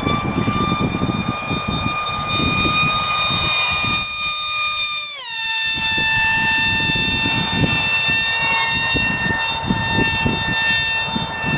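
Model airplane's motor and propeller whining at a high, steady pitch while it flies. The pitch drops sharply about five seconds in, then holds lower, with a gusty low rumble underneath.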